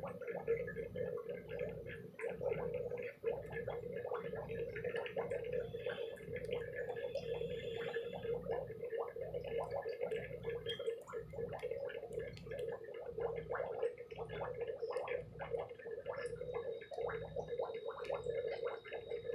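Water gurgling and bubbling steadily with many small ticks, over a low hum that pulses a little more than once a second.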